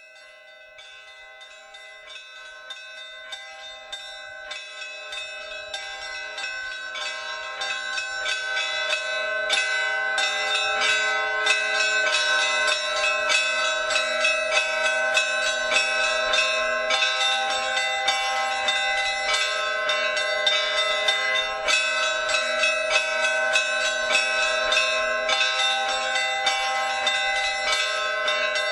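A peal of many bells, struck over and over so that their tones ring on and overlap, fading in over the first ten seconds or so and then ringing steadily.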